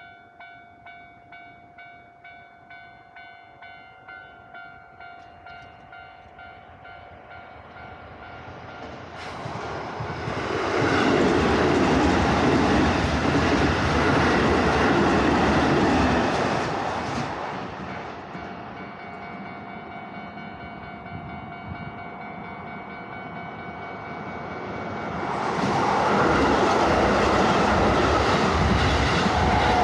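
Level-crossing warning bell ringing in a steady pulse, about two strikes a second. About ten seconds in, a Keisei Main Line electric train passes over the crossing for some seven seconds, the bell carrying on underneath once it has gone; from about twenty-five seconds in, a second train passes.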